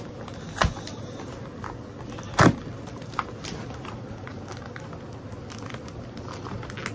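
Cardboard toy packaging being handled and pulled apart: two sharp knocks, about half a second and two and a half seconds in, with lighter cardboard clicks and taps between.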